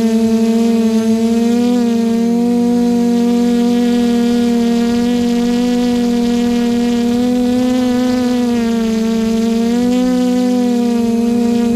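QAV540G quadcopter's electric motors and propellers humming steadily, heard close up from the craft's own onboard camera, the pitch wavering slightly now and then as the motors change speed.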